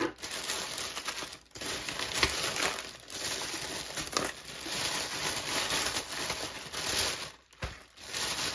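Plastic packaging crinkling and rustling as cellophane-wrapped kits and foil bubble mailers are pulled out of a plastic poly mailer bag and stacked, with brief pauses about one and a half seconds in and near the end.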